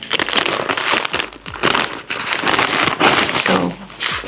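Plastic packaging crinkling and rustling in irregular bursts as clothing is rummaged through and pulled out of its bags.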